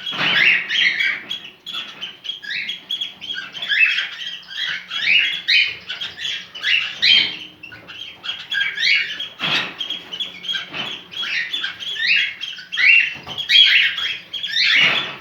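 Cockatiel in breeding condition calling: a continuous, rapid run of short chirps and whistles, several a second, broken by a couple of harsher squawks.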